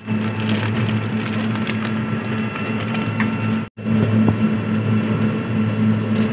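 Vehicle engine running with a steady low drone and road rattle, heard from inside the open-sided passenger vehicle as it drives; the sound cuts out for an instant a little past halfway.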